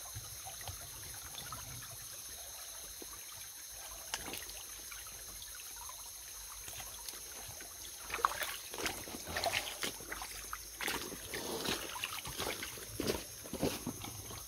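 Stream water trickling faintly, then from about eight seconds in irregular splashing and sloshing as feet and hands move through the shallow water.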